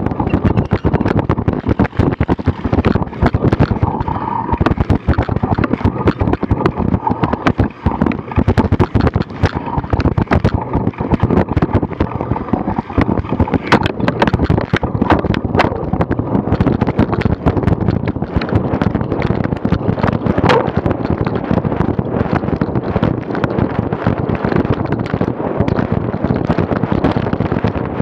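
Wind buffeting an action camera's microphone on a bike ridden fast over a bumpy grass cyclocross course, with dense rattling and jolts from the bumps throughout.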